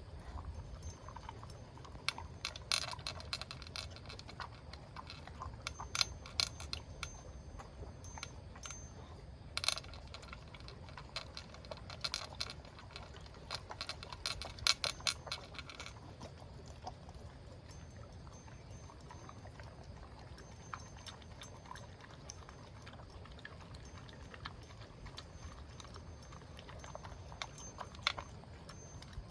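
A small pet eating: several bursts of rapid crunching clicks, with pauses between them, over a faint low hum.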